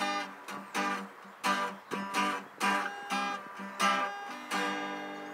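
Acoustic guitar strummed, a chord about every two-thirds of a second, the last chord left ringing and fading out near the end.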